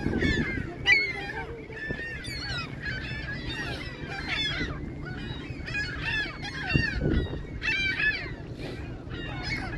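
A flock of birds calling at once: many short, overlapping calls that bend up and down in pitch, over a steady low rumble.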